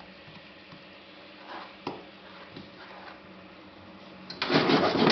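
Banana slices dropping into a frying pan of simmering sugar syrup, with soft plops and light ticks over a faint steady sizzle. Near the end there is a much louder, dense crackling noise lasting about a second and a half.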